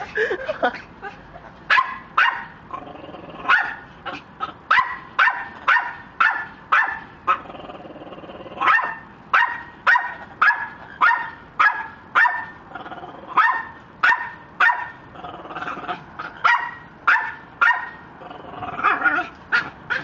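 Red-lored amazon parrot mimicking a dog, giving a long series of short barks at about one or two a second.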